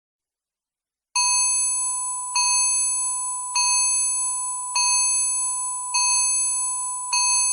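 Countdown timer's alarm going off: an electronic bell-like chime struck about once every 1.2 seconds, each strike ringing on and fading a little before the next. It starts sharply about a second in, out of silence.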